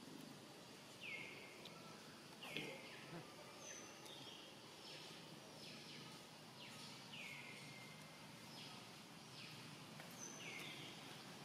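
Faint, repeated high calls, each sliding down in pitch with a short trailing tail, about one a second, and a soft knock about two and a half seconds in.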